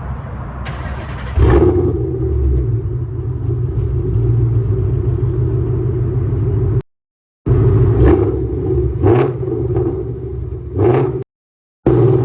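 2018 Mustang GT's 5.0 V8 running through catless long-tube headers and new mufflers: a steady idle that grows louder about a second and a half in, then several short throttle blips in the second half. The sound cuts to silence twice, briefly.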